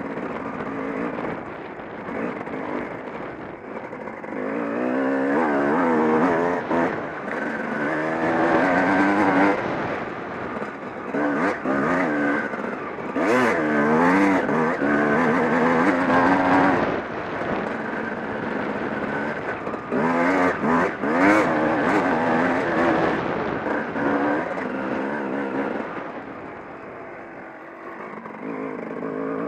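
Dirt bike engine heard from the rider's helmet camera, its revs rising and falling over and over as it is ridden across rough ground. The engine is loudest in the middle stretch and eases off near the end.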